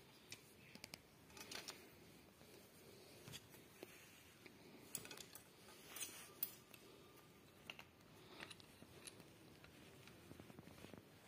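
Faint, scattered metallic clicks and ticks of a flaring tool being set and tightened on copper refrigerant pipe, over near silence.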